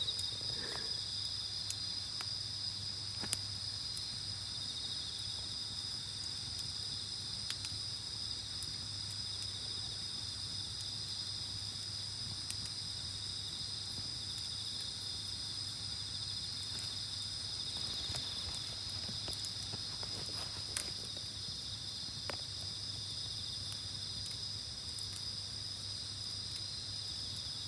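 A steady, continuous high chorus of night insects, with scattered sharp crackles and pops from a wood campfire, the loudest about three seconds in.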